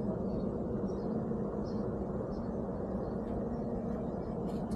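A steady low mechanical hum holding a constant pitch under an even background rush, with a few faint short high chirps.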